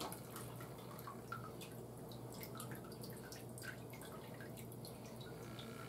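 Faint broth dripping off a cooked whole chicken as it is lifted out of a roaster pan of liquid: scattered small drips falling back into the broth.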